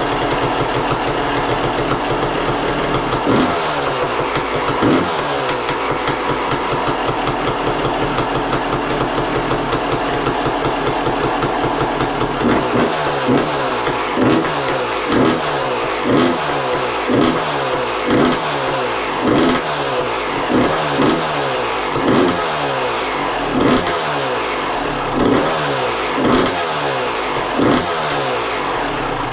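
Suzuki RM two-stroke single-cylinder engine running with the expansion pipe on but no silencer fitted. It idles steadily with two short revs a few seconds in, then is blipped about once a second from roughly halfway on.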